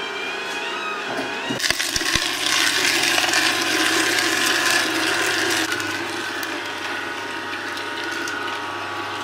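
Kuvings vertical slow juicer's auger crushing carrots over its low motor hum. A couple of sharp clicks come about two seconds in, then a loud crunching grind for a few seconds that eases to a quieter churn.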